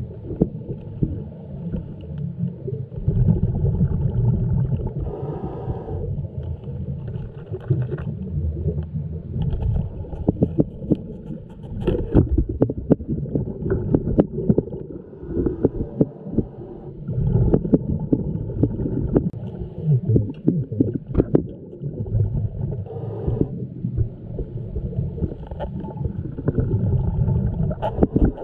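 Muffled underwater sound heard through a camera's waterproof housing: scuba regulator exhaust bubbles rumbling and gurgling in surges every few seconds, with many scattered clicks and knocks.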